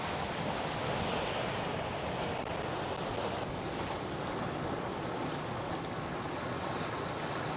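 Sea waves breaking on a rocky shore, a steady wash of surf, with wind blowing.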